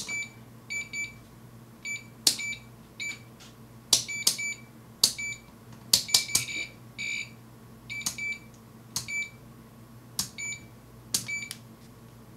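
BK Precision 2705B digital multimeter's rotary range switch clicking from position to position, with short high beeps from the meter after many of the clicks, at an uneven pace. The meter is connected to 115 V mains throughout.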